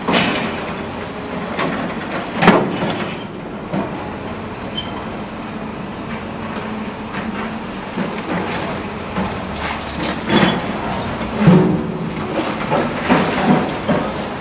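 Hydraulic excavators demolishing a building: a diesel engine running steadily under scattered crashes and clanks as concrete block and debris are broken and shifted. The loudest crash comes about two and a half seconds in, and a cluster of clanks follows near the end.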